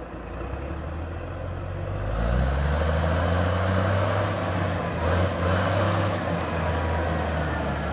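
Clark Michigan 275B wheel loader's Cummins NT855 diesel engine running as the loader drives up at road speed, growing louder about two seconds in as it draws close.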